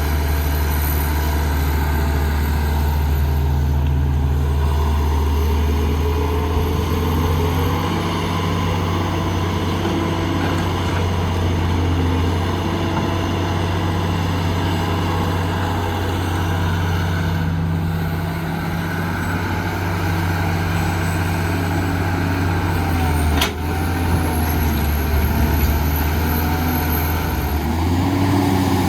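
Heavy diesel construction machinery running steadily with a deep engine hum, and a brief sharp click about two-thirds of the way through.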